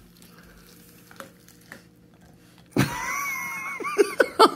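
Goldendoodles play-wrestling on carpet, faint rustling at first. About three seconds in, a sudden loud, high-pitched whine starts, wavering in pitch over a breathy hiss, and breaks into a few short sharp yips near the end.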